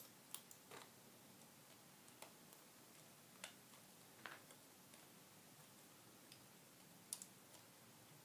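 Faint, irregular clicks of plastic LEGO Technic parts being handled and pressed together, about ten in all, the sharpest right at the start.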